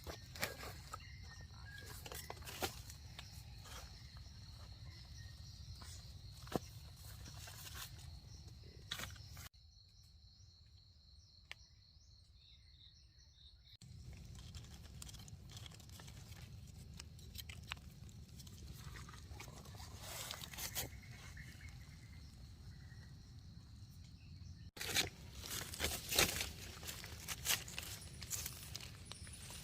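Scattered crunching and rustling of forest-floor litter and plant material being handled, over a steady thin high-pitched whine and low rumble. The sound drops to a quieter stretch for a few seconds about a third of the way in.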